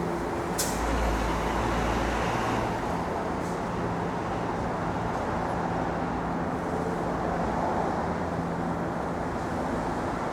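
Steady city street traffic noise from passing cars and engines, with a louder low rumble for a second or two near the start and a single sharp click about half a second in.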